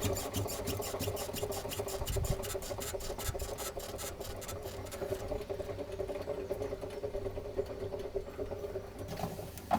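Small electric motor of a toy washing machine running with a steady hum and rapid, even ticking as the drum turns. The ticking fades out about halfway through while the hum carries on.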